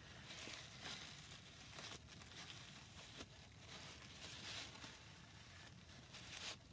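Faint rustling and scraping with a few light clicks.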